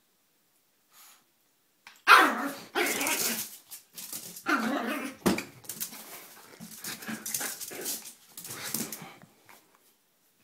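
A tiny Yorkshire terrier barking in feisty play, a run of bursts starting about two seconds in, the first the loudest.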